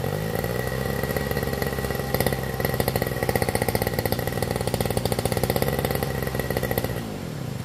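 Lawn mower engine running with a fast, even firing beat. Its pitch rises as it comes up to speed at the start, and it winds down with falling pitch about seven seconds in.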